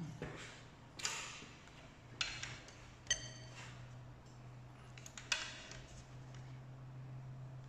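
A socket ratchet and long wrench handle clicking and clinking on the cylinder head bolts of a VW 1.8 TSI engine as they are tightened: a handful of separate sharp clicks, with one ringing metallic ping about three seconds in.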